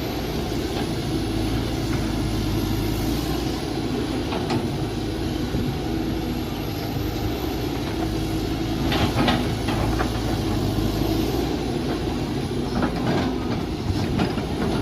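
Mini excavator engine running steadily under working load, with a few short knocks and clatters from the machine at work, about a third of the way in, midway and near the end.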